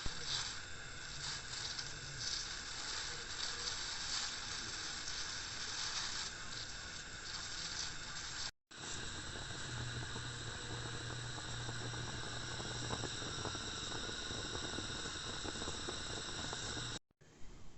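Food frying in hot oil in a pan: a steady sizzle with fine crackles. It breaks off for a moment about halfway through and again near the end.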